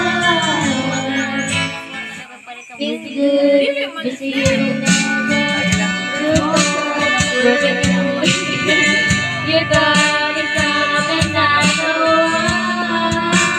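Amplified karaoke singing over a backing track, with a steady beat coming in about four seconds in.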